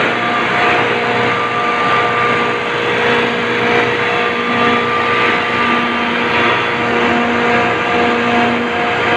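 Sabroe ammonia refrigeration compressor running steadily under load in a plant room: a loud, even machine noise with a steady hum and a thin whine held over it.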